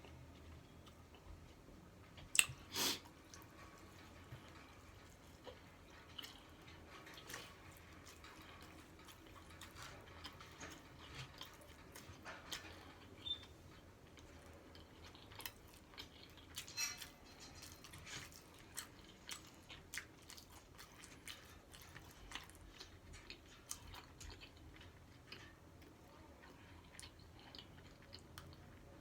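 Faint, close-miked chewing of a taco: wet mouth smacks and small crunches scattered throughout, with two louder sharp crunches between two and three seconds in.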